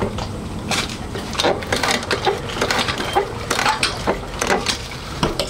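Irregular scraping, rubbing and knocks from hands-on work at a motorcycle's front fork, made while the leaking fork seal is being checked for oil.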